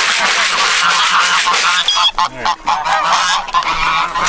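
A flock of geese honking over and over, many short calls overlapping.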